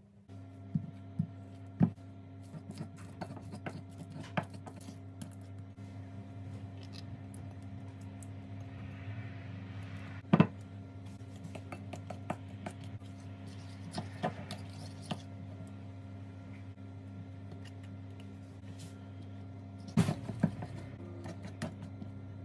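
Metal spoon and then a wire whisk stirring thick batter in a ceramic bowl: soft scraping with scattered sharp clinks of metal on the bowl. The clearest clinks come about two seconds in, about ten seconds in, around fourteen seconds and near the end. A steady low hum runs underneath.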